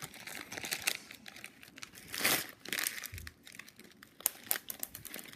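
Plastic candy wrapper of Skittles crinkling as it is handled, irregular rustles with scattered small clicks, loudest about two seconds in.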